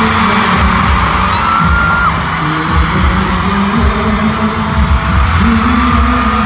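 Live K-pop concert sound in an arena: loud amplified pop music with a heavy, steady bass beat and singing. A high held note rings over it about a second and a half in, then drops away near the two-second mark.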